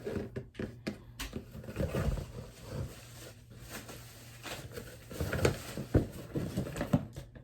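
Packaging being handled and pulled open: irregular rustling with scattered knocks and thumps.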